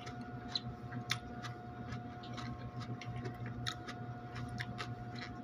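Close-up chewing of crisp raw cucumber salad: irregular small crunches and mouth clicks, over a steady hum.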